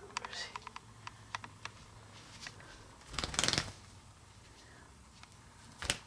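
Handling noises while doing laundry: light clicks and fabric rustling, a brief loud rustle about three seconds in, and a single sharp click near the end.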